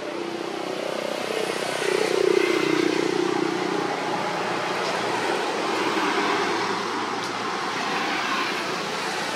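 Vehicle engine noise that swells about two seconds in, is loudest around two and a half seconds, then settles to a steady level.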